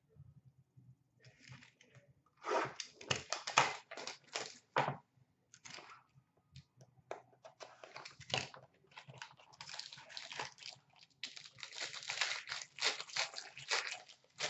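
Cardboard trading-card box being opened and a card pack torn open by hand: a run of short tearing and crinkling noises, with a few sharp strokes between about two and five seconds in and a dense stretch of crinkling near the end.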